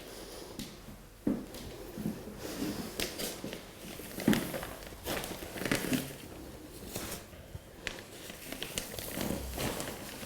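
Rustling and shuffling of a body and clothing being handled and moved during osteopathic treatment, with a few soft thumps and brief clicks.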